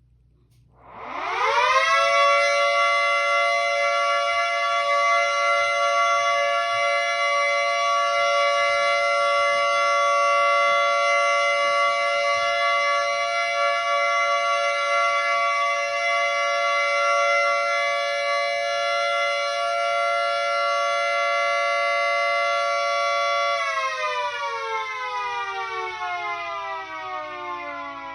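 Miniature 2T22A siren spinning up from silence about a second in, rising quickly to a steady chord-like tone that holds for about 22 seconds, then winding down in a falling glide near the end. This is the steady alert signal.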